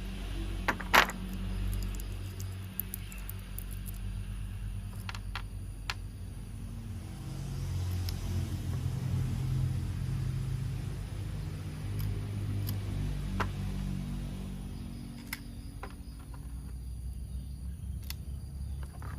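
Battery-powered toy train running, with a low motor rumble that rises and falls and a handful of sharp plastic clicks and taps, the loudest about a second in.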